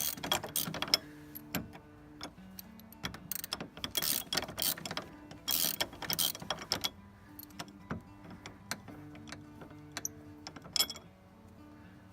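Socket ratchet clicking in short bursts as bolts are turned out of a Jeep door hinge, with pauses between runs.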